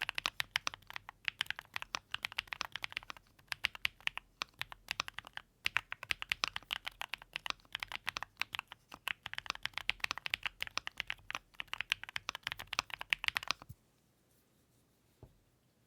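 Fast typing on a Keychron mechanical keyboard: rapid key clacks in runs with short pauses, stopping about two seconds before the end, followed by a single faint click.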